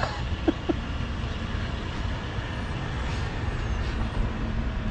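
Steady low rumble of an idling vehicle engine at a fuel station, with a few brief hisses about three and four seconds in.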